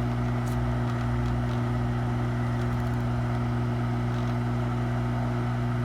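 Hot air rework station blowing at maximum airflow: a steady hum with a hiss of rushing air.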